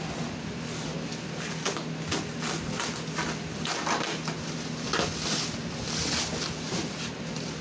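Clear plastic wrap crinkling and rustling as hands pull and bunch it off a wooden panel, in irregular crackles that grow busier past the middle.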